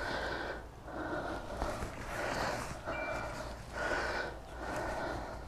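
A person breathing audibly, with soft breaths coming roughly once a second.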